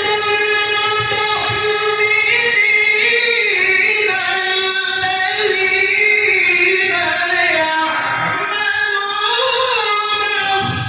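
A male Quran reciter's voice in melodic tilawah recitation, holding long ornamented notes that bend up and down in pitch.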